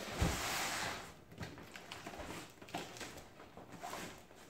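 Large shrink-wrapped cardboard appliance box being handled and turned over on a wooden floor: a thump just after the start, a brief scraping rush as it moves, then light rustles and taps of the cardboard and plastic wrap.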